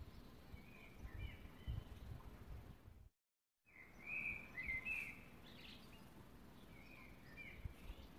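Faint songbird chirps and short warbled phrases over a low background hiss, in three bursts, broken by a half-second dropout to silence a little after three seconds in.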